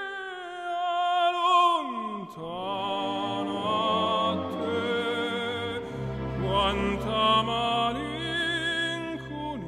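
Operatic singing with strong vibrato over orchestral accompaniment; deeper bass notes come in about six seconds in.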